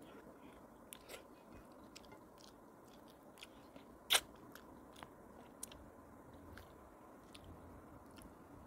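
A person eating fish with her fingers: faint chewing with scattered small wet mouth clicks and lip smacks, and one sharp, louder smack about four seconds in as her fingers are at her lips.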